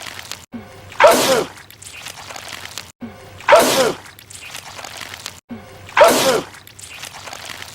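A man's loud sneeze, the same sneeze repeated three times about two and a half seconds apart. Each is a sudden burst with a short falling cry that dies away in about half a second. Each repeat follows an abrupt cut.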